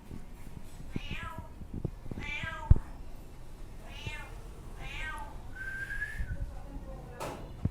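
A cat meowing four times, short calls that fall in pitch, with a brief high whistle-like tone after the last one. A sharp knock about two and a half seconds in is the loudest sound.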